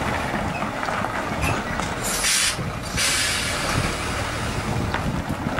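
Heavy tractor-trailer truck's diesel engine running at low speed as it creeps around a tight bend, with a loud hiss of air brakes about two seconds in, followed by a softer hiss.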